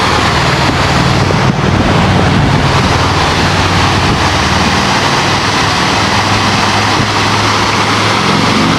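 Loud, steady rush of water pouring over a dam, with a low rumble underneath.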